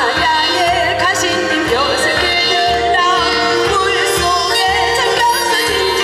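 A woman singing with wide vibrato into a microphone, amplified through a PA, over a backing track with a steady low beat about twice a second.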